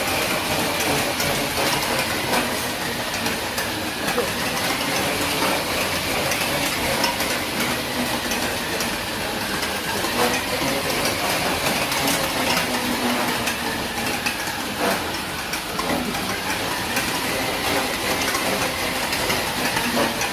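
Dog-powered treadmill running fast under a Belgian Malinois: a steady rattling clatter of the belt and rollers, with many small quick knocks from the running.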